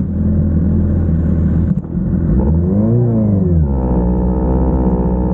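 Sport motorcycle engine idling, revved once about two and a half seconds in, its pitch rising and falling back within a second or so, then settling to a steady idle.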